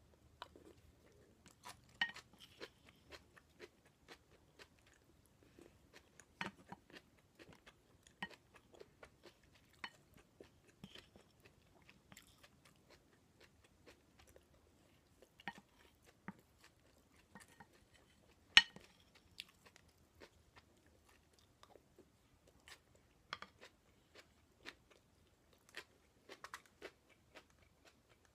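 Close-miked chewing of stir-fried bok choy, with irregular crisp crunches and small clicks, one sharp, loud crack about two-thirds of the way through.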